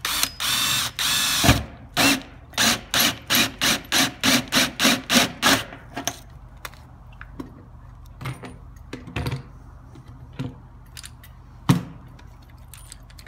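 Power drill spinning a 1-1/8 inch hole saw into the metal skin of an insulated metal panel. It runs steadily for about a second, then comes a quick series of short pulses, about three a second, as the saw cuts through the metal skin only, stopping short of the foam core. After that there are only scattered light clicks, with one sharper click near the end.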